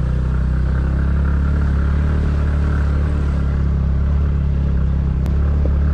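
A scooter's single-cylinder engine runs steadily at low speed on a rough gravel track, its hum even throughout.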